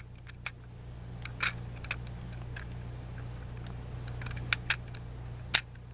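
Plastic LEGO pieces clicking and knocking as they are handled and pressed into place, a scattering of short sharp clicks with the sharpest about five and a half seconds in. A steady low hum runs underneath.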